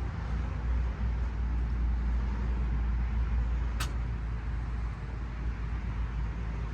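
Steady low rumble of a vehicle, with a single sharp click about four seconds in.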